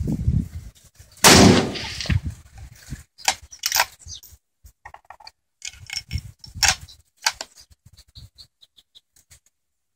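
A single shot from a benchrest rifle on a BAT bolt action, about a second in, with a short ringing echo. It is followed by a scattering of sharp clicks and knocks.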